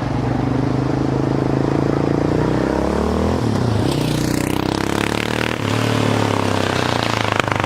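Yamaha Raptor 700 quad's single-cylinder engine running loud through a LeoVince aftermarket exhaust. Its pitch sags and then climbs again around the middle, and settles to a steady note a little after five seconds in.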